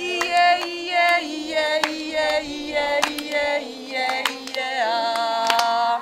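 A woman sings a short melodic phrase for the children to repeat, with held notes and a few pitch slides between them. Scattered handclaps sound over the singing.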